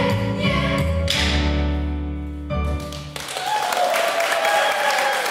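A choir song ends on a sharp accented hit about a second in, then a held closing chord. The chord stops about three seconds in and the audience applauds, with a voice sliding down in pitch over the clapping.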